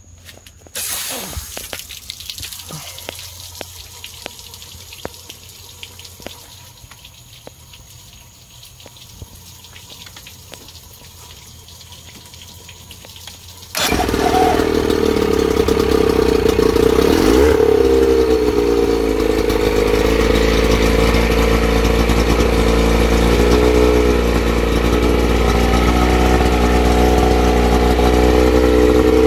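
Water hissing steadily through flushing earmuffs on the outboard's lower unit, then about halfway through a 1987 Johnson 25 hp two-stroke outboard starts suddenly and runs steadily on the muffs, its carburetor, fuel pump and water pump freshly rebuilt.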